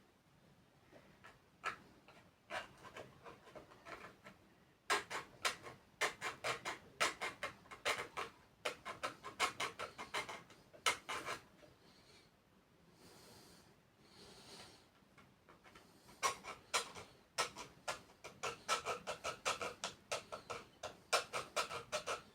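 Quick scraping strokes of a hand tool working a workpiece, a few strokes a second, in two long runs with a short pause between them.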